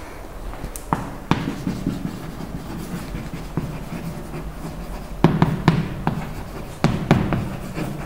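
Chalk writing on a chalkboard: sharp taps and short scratchy strokes, a couple about a second in and a cluster between about five and seven seconds.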